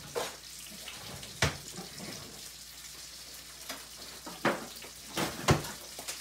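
Kitchen clatter: a handful of sharp knocks and clacks as things are handled and unpacked from a plastic box on the counter, over a faint steady hiss.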